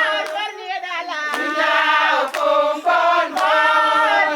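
A group of women singing together, with a hand clap on the beat about once a second.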